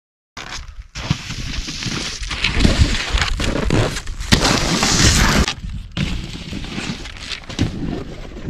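Snowboard scraping and crunching over snow close to a helmet-free action camera's microphone, with several sharp knocks and wind rumbling on the mic. The sound cuts in abruptly right at the start, is loudest in the first half, and drops suddenly about halfway through.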